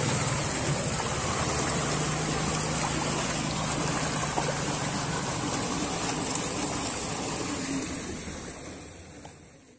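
Fast water rushing and splashing along a narrow concrete ditch, a steady rush that fades out over the last two seconds.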